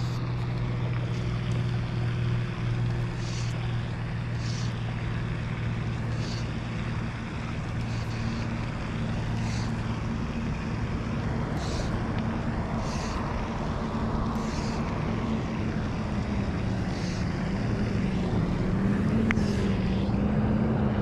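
Fly line being stripped in by hand through the rod guides in short swishes every second or two while a hooked largemouth bass is played in. Under it run a steady low motor hum and wind on the microphone.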